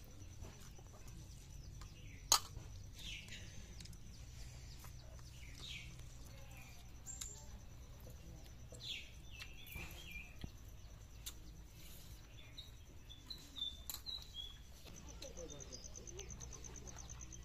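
Quiet outdoor ambience: scattered short bird calls and chirps over a low steady hum and a faint high tone. A single sharp click about two seconds in is the loudest sound.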